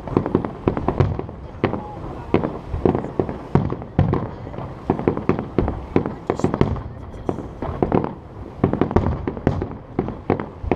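Aerial fireworks display: shells bursting in rapid, irregular succession, several bangs a second with no pause.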